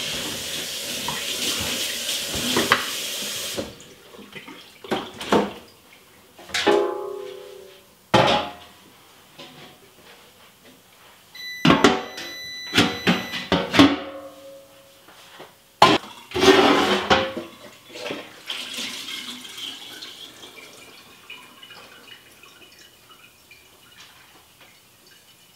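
Kitchen tap running onto a turkey in the sink, shutting off about four seconds in. Then a series of clanks and knocks as an enamelware roasting pan and its lid are handled, some ringing briefly.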